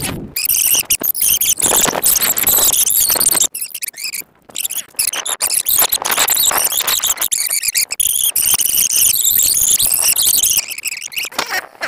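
A high-pitched, warbling squeal sound effect that wavers in pitch and breaks off briefly a few seconds in, laid over the edit as the cue for a flashback.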